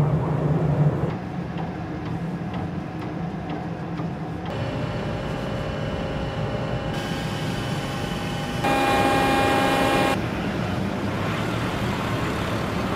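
Steady engine and machinery noise at sea, changing abruptly several times. Through the middle a steady whine of several tones runs underneath, loudest for about a second and a half near the end of it.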